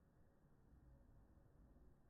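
Near silence: only a faint low rumble.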